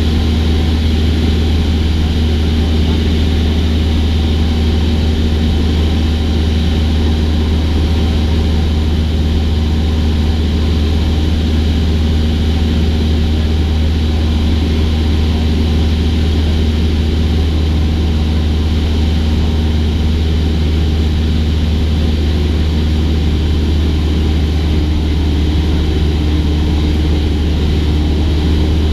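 Cessna 172's piston engine and propeller running steadily in flight, an even drone with a strong deep hum.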